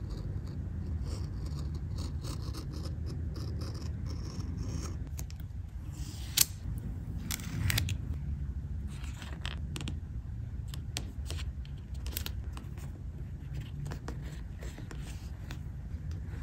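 Precision craft knife scratching as it cuts through sticker paper, then paper handling: a single sharp click about six seconds in, and small taps and rubs as the paper cut-out is laid and pressed onto a notebook page. A steady low hum runs underneath.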